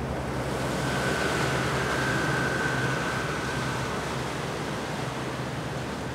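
Harbour launch's engine running at cruising speed as the boat passes below and draws away, a low steady hum with an even pulse over the rush of its wake. A faint high whine sounds from about a second in until nearly four seconds, and the whole sound eases slightly as the boat moves off.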